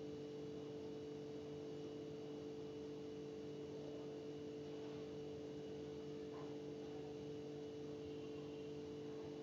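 Faint steady hum with a couple of steady tones, unchanging throughout; no sizzling or stirring is heard.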